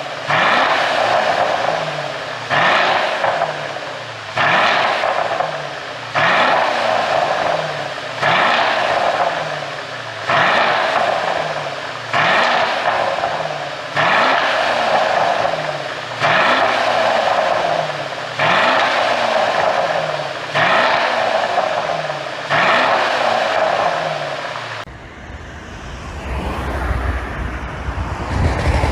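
Mercedes-Benz S500L's twin-turbo V8 blipped about twelve times, roughly every two seconds, each rev falling away with crackling and popping from the exhaust: an ECU tune set to make overrun pops. About 25 seconds in, the revving stops and gives way to a low, steady engine rumble.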